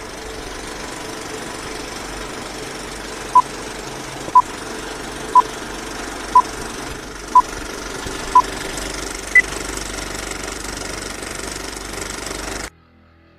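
A steady, engine-like mechanical running noise, with six short beeps of one pitch a second apart and then a single higher beep, like a countdown. The noise cuts off suddenly near the end.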